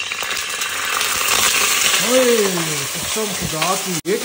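Raw chicken pieces sizzling and frying in hot oil in a karahi, a steady hiss that swells about a second in. A drawn-out voice sound rises and falls briefly around the middle.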